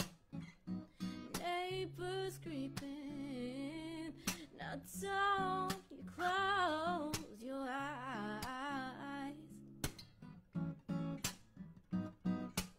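A woman singing with her own acoustic guitar: a sung melody with vibrato over strummed chords punctuated by sharp, muted percussive strums. The voice stops about three-quarters of the way through, leaving the guitar strumming alone.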